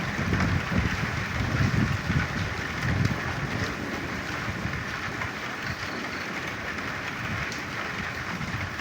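Rain falling steadily with frogs croaking, the low croaks coming more often in the first few seconds.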